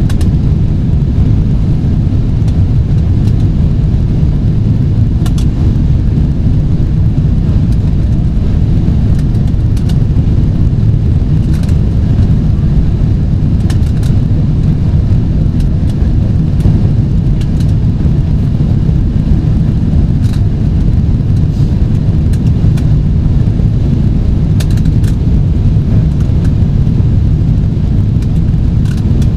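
Steady low rumble of cabin noise inside a Boeing 777-300ER in flight: airflow over the fuselage and its GE90 turbofan engines, unchanging in level. A few faint ticks sound here and there.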